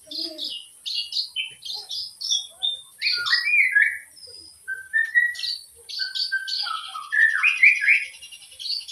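Long-tailed shrike (cendet) singing a fast, varied song of mimicked calls: rapid short chirps that fall in pitch, lower whistled notes in the middle, and a quick rattling trill near the end.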